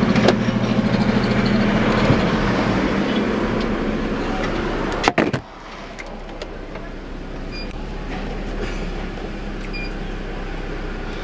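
Car interior noise from a slow-moving car: a steady rumble with a low hum that is cut off by a clunk about five seconds in. After that the cabin is much quieter, with a few faint short beeps.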